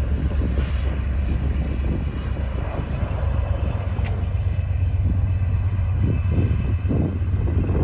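Diesel freight locomotives at the head of a loaded coal train running, a steady low drone.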